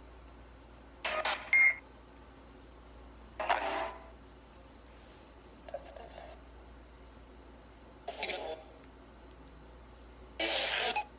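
Spirit box sweeping through radio stations: five brief bursts of radio static and clipped sound fragments about two seconds apart, the first with a short beep. A steady high pulsing tone runs underneath.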